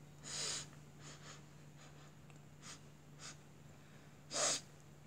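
Close sniffing as a girl smells a bath bomb held to her nose: two loud sniffs, one just after the start and one near the end, with a few fainter breaths between, over a faint steady low hum.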